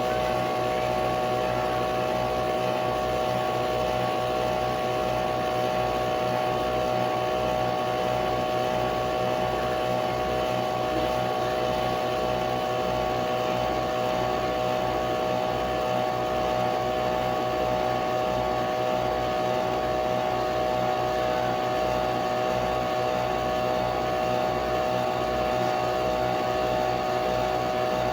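Nespresso Vertuo Pop+ coffee machine brewing: a steady motor whine with a regular low pulsing underneath.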